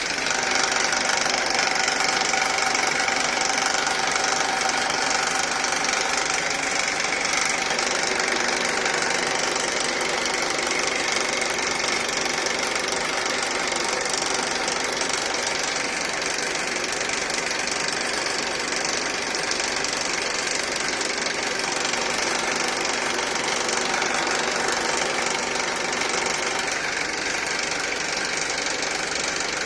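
Honda Accord's K24 2.4-litre four-cylinder engine running steadily with a rattling noise.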